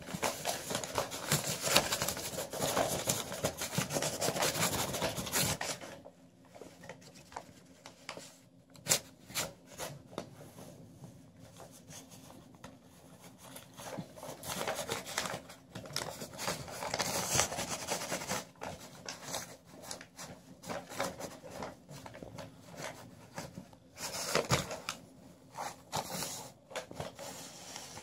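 Sheet of junk-mail paper rustling and scraping over carpet as it is waggled under a door and a cat paws at it, in bursts with short pauses, the longest burst at the start.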